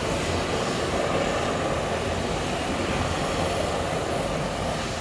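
McDonnell Douglas MD-80 airliner running steadily during pushback, a constant rumble with a faint high whine on top.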